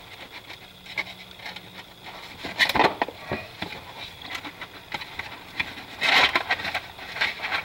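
Cardboard box being opened by hand: the flaps scrape and rustle, with small clicks and two louder scuffs, about three seconds and six seconds in.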